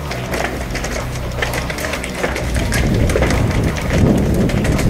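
Rumbling wind and handling noise on a body-worn action camera carried by a moving airsoft player, with scattered sharp clicks and taps. The noise swells about four seconds in.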